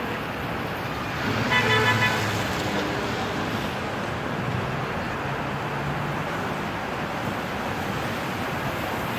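Busy city street traffic, a steady wash of engines and tyres, with a car horn honking once for under a second about a second and a half in.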